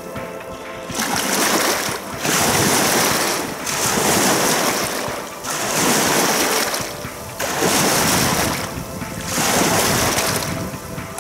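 Small waves washing onto a lakeshore, a rushing swell about every one and a half to two seconds.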